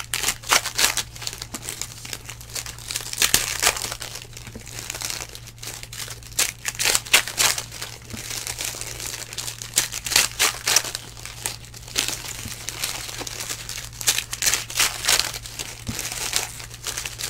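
Foil trading-card pack wrappers crinkling and tearing in irregular crackly bursts as 2019 Donruss Elite Football packs are ripped open and handled by hand, over a steady low hum.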